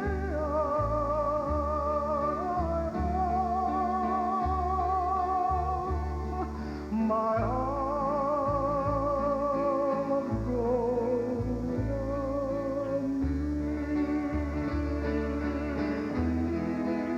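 A live Hawaiian vocal group sings held notes in close harmony with vibrato over plucked guitar and a steady bass line.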